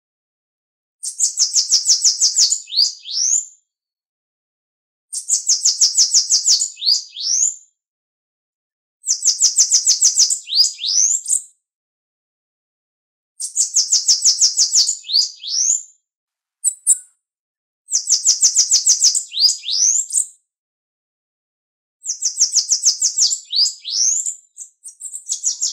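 Bananaquit (Coereba flaveola) singing the same song phrase over and over. Each phrase is a rapid, high trill of short notes lasting about two seconds and ending in a few quick sweeping notes. Six phrases come roughly every four seconds with silent gaps between.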